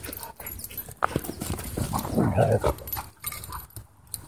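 Huskies play-fighting: scuffling and thumping of paws and bodies, with a short dog vocalization about two seconds in.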